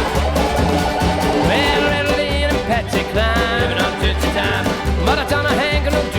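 Background country music, an instrumental passage with a steady, repeating beat and a gliding melodic lead.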